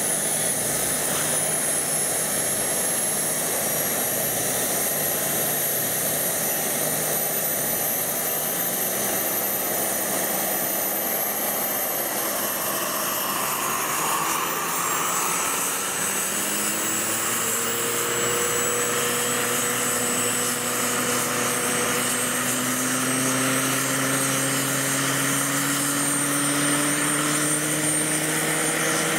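Radio-controlled scale model helicopters running up on the ground: a steady high whine that slowly rises in pitch. About halfway through, a lower rotor hum comes in and climbs as well, as the rotors spool up.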